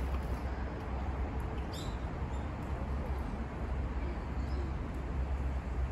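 Steady outdoor background noise with a low rumble throughout, and a brief faint high chirp about two seconds in.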